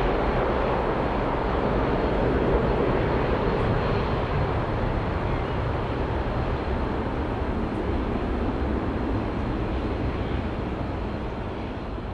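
Airbus A300-600 jet airliner's twin engines at climb-out power just after takeoff: a loud, steady rumble that slowly fades toward the end as the aircraft climbs away.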